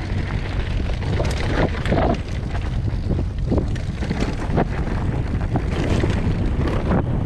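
Wind buffeting the microphone while a mountain bike rides a dirt trail: a steady low rumble, with scattered clicks and rattles from the bike.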